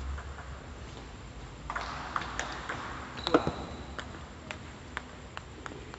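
Table tennis ball clicking off rubber paddles and the table in a short rally, with a sharp ringing hit about three seconds in, followed by a few scattered single ball taps.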